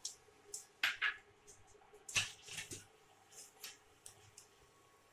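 A metal spoon scraping and clinking against a steel pressure-cooker pot as wet, spiced chickpeas are stirred: a string of short, irregular scrapes and taps, the loudest about a second and two seconds in.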